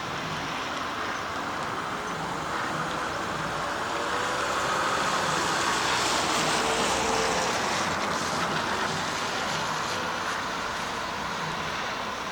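A road vehicle driving past, its noise swelling to a peak about six or seven seconds in and then easing off.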